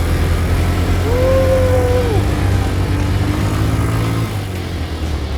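ATV engine running with a steady low drone that drops away about four seconds in. About a second in, a long held call rides over it, level in pitch and then falling at the end.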